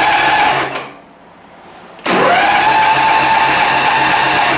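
Electric starter cranking a mower's small gas engine in two tries without it catching. A steady whine stops about a second in, then after a short pause it spins up again, rising quickly to a steady whine. The engine has an air-vane automatic choke, which the owner blames for the hard start.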